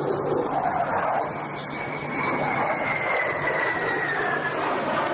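Aircraft engine noise: a steady rushing sound, with a thin high whine that comes in about two seconds in and falls slightly in pitch before fading.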